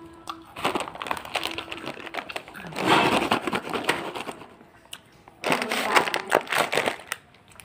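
Kurkure Masala Munch plastic snack packet crinkling as a hand presses and handles it, in two spells of crackling with a short pause about five seconds in.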